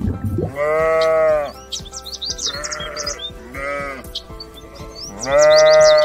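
An animal calling: two long, even-pitched calls of about a second each, one just after the start and the loudest near the end, with two shorter calls between them. Quick high chirps and background music run underneath.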